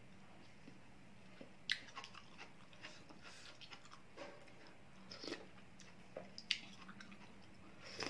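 A person eating spoonfuls of shrimp and vegetable soup: quiet chewing with scattered short mouth clicks and smacks.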